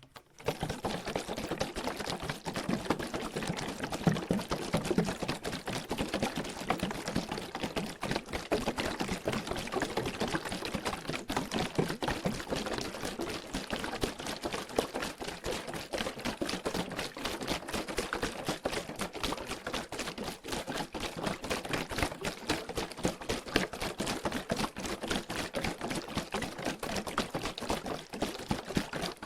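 Water sloshing inside a plastic water bottle as it is shaken steadily: a continuous, rapid swishing and splashing that starts just after the opening.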